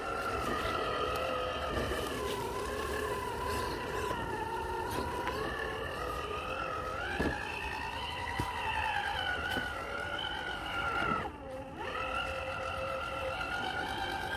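Element RC Enduro scale crawler's Hobbywing 1800kv Fusion brushless motor and geared drivetrain whining as it crawls, the pitch rising and falling with the throttle. About eleven seconds in the whine drops away briefly and then picks up again, and a few sharp clicks sound over it.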